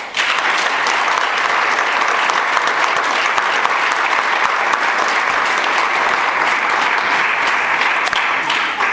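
Audience applauding: dense, steady clapping that starts abruptly and cuts off suddenly at the end.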